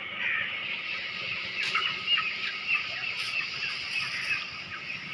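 Birds calling: many short chirps repeating over a steady high-pitched hiss of background noise.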